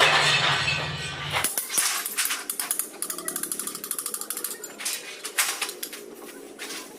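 Metal mechanism clicking and ratcheting in quick, uneven clicks. A steady hum underneath cuts off about a second and a half in.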